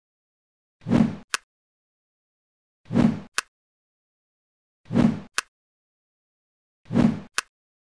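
A stock sound effect that marks each part snapping into place in an animated assembly, played four times, one every two seconds: a short low sound, then a sharp click about half a second later.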